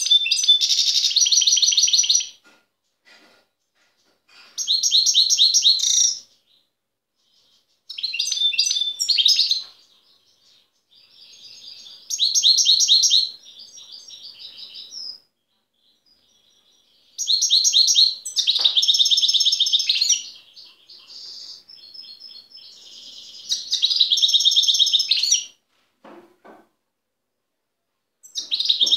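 European goldfinch singing its wild-type song: phrases of rapid, high twittering notes a second or two long, repeated about eight times with short pauses between.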